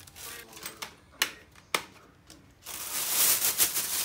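Black plastic bag rustling as handfuls of potting soil drop into it, with two sharp clicks a little over a second in. Near the end the bag crackles loudly as it is gathered up and lifted.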